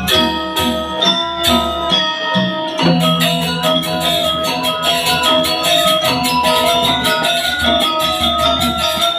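Balinese gamelan playing: metallic struck keys and gongs ringing in a steady rhythm, the strokes growing faster and denser about three seconds in.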